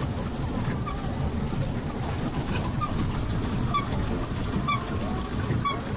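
Duck-shaped pedal boat underway on a lake: a steady low rumble of wind and churning water, with a short faint squeak about once a second.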